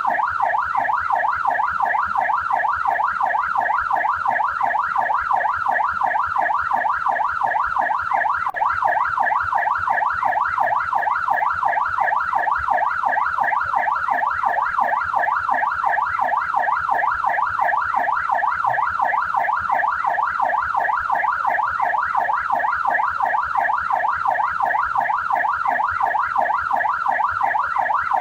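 Australian police car siren sounding a steady fast warble, its pitch sweeping up and down several times a second without a break.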